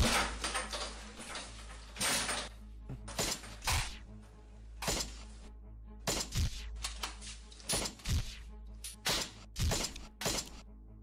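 Movie soundtrack: a string of gunshot sound effects, about a dozen sharp cracks at irregular spacing, over quiet background music.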